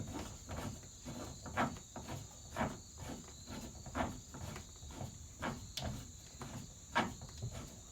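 Hand riv nut tool being unthreaded from a freshly set hex riv nut in the van's sheet metal: a string of light metal clicks and ticks, roughly one a second.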